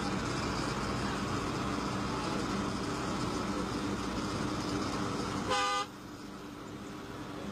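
Steady engine and road noise of a moving truck. A short horn-like toot sounds about five and a half seconds in, after which the sound drops abruptly to a quieter hum.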